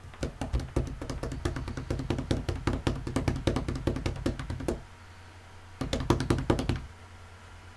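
A fast, rapid run of sharp knocks or taps, many a second, lasting about four and a half seconds. A second short run comes about a second later, over a steady low hum.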